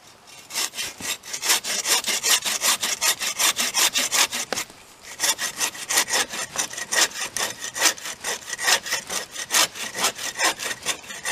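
Bow saw cutting through a fallen tree trunk in fast back-and-forth strokes, several a second, with a brief pause about five seconds in before the sawing picks up again.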